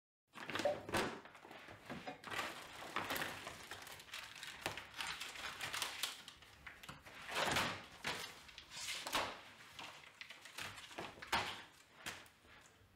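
Hands handling packets and tins in a small room: an irregular run of rustles and light knocks, starting about half a second in.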